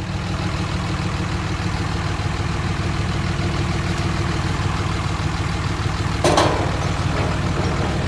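Diesel pickup truck engine idling steadily. About six seconds in there is one brief knock.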